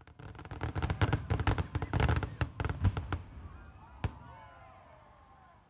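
Fireworks crackling in a rapid scatter of small pops that thins out after about three seconds, followed by one last sharp pop about a second later.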